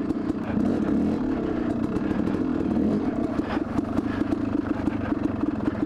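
A 2002 Yamaha YZ250's single-cylinder two-stroke engine running while the dirt bike is ridden. Its pitch shifts in the first couple of seconds, then settles into a steadier, even beat.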